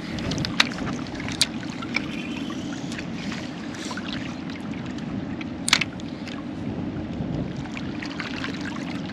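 Strong wind buffeting the microphone, a steady low rumble, with a few sharp clicks and ticks, the loudest about six seconds in.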